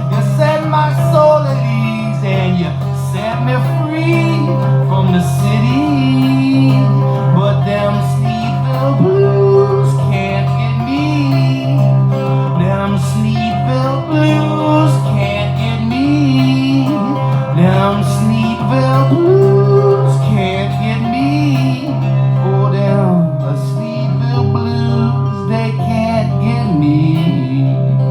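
Live country-blues band playing an instrumental break: strummed acoustic guitar over a steady bass, with a lead melody line that bends and slides between notes.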